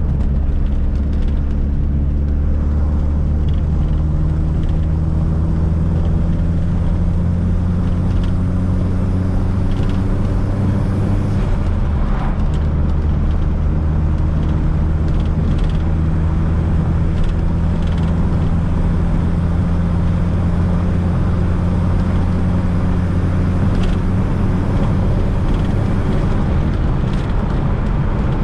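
Fiat Coupe 16V Turbo's turbocharged four-cylinder engine pulling under way with tyre and road noise: the engine note climbs slowly for about eleven seconds, breaks briefly around twelve seconds in, then runs fairly steady.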